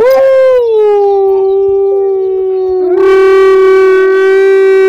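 A wolf howling: one long howl that rises briefly at the start, then holds a steady pitch and grows fuller and louder about three seconds in.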